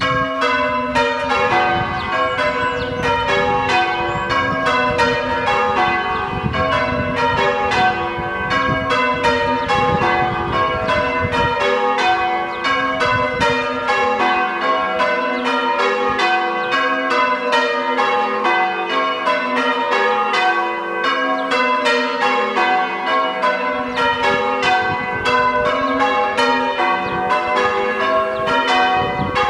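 A ring of six church bells in a tower rung one after another in quick, even succession, several strikes a second, as English bells are rung in changes.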